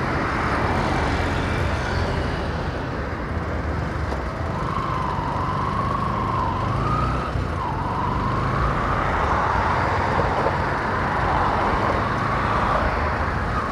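Motorcycle engine running while riding along a highway, with wind noise on a helmet-mounted microphone and traffic passing. A wavering whine comes in about four and a half seconds in and fades near the end.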